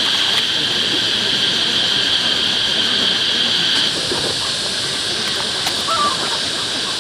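Steady hissing noise with a high steady tone on top; the tone fades out about four seconds in while the hiss goes on.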